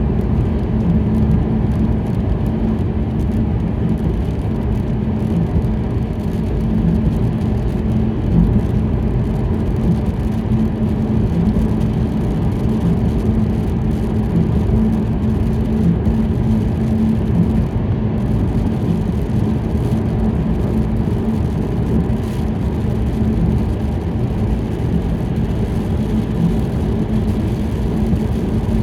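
Steady low rumble of a car driving on a wet road, heard from inside the cabin, with a constant low hum running through it.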